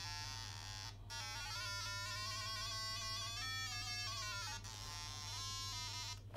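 Buzzy square-wave tone from an Arduino's tone output. Its pitch glides and steps up and down, breaks off briefly about a second in, and cuts off near the end.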